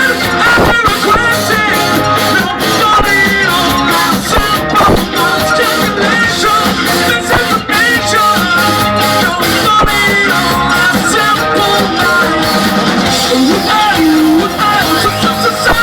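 Live rock band playing loudly, electric guitar with a singing voice over it.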